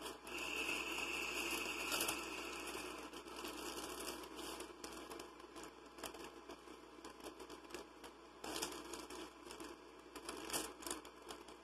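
Crinkling of a plastic vaporizer balloon bag being handled and squeezed as it is inhaled from, with a steady hiss over the first three seconds.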